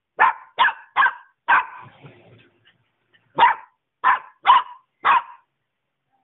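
Puppy barking in sharp single barks: four in quick succession, a pause of about two seconds, then four more.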